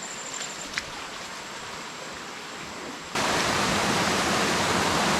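A small jungle stream running softly with a few faint clicks. About three seconds in, it gives way abruptly to a much louder, steady rush of water.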